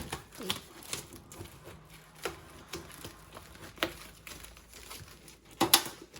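Packaging being handled: tape and wrapping crinkling and tearing, with several sharp clicks and knocks, the loudest near the end.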